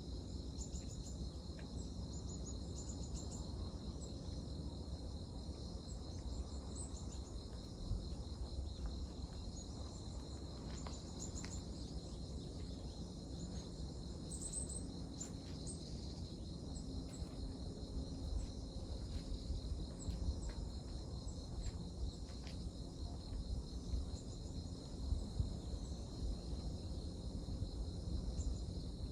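Insects chirping steadily in a high, continuous trill, with scattered short chirps above it, over a low rumble.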